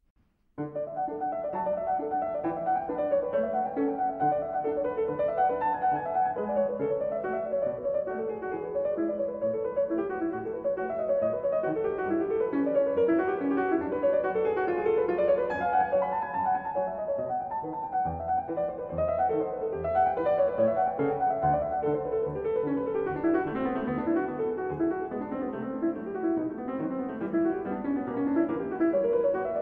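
Classical-style solo piano music, a continuous flow of notes starting about half a second in.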